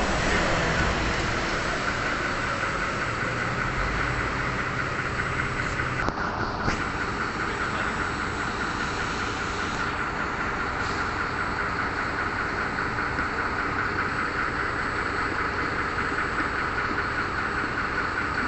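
Steady vehicle running noise with a high squealing tone through it, and a short break about six seconds in.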